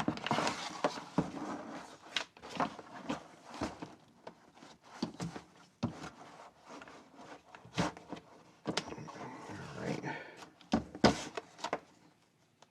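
A tablet being pressed into a hard plastic and rubber case: a string of irregular clicks, knocks and rustling handling noise, with the last knocks coming near the end.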